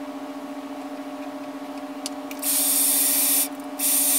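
Dyson Airwrap styler blowing through its curling barrel: two short clicks about two seconds in, then a loud rush of air with a high whine, which cuts out briefly and starts again near the end. A steady low hum runs underneath.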